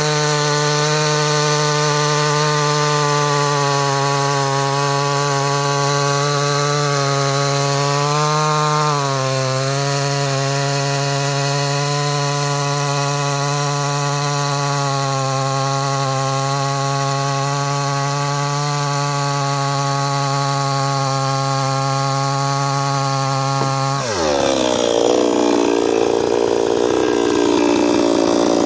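55 cc two-stroke petrol chainsaw running at high, steady revs. Near the end the engine pitch drops suddenly and the sound turns rougher and a little louder, as the chain bogs down into wood.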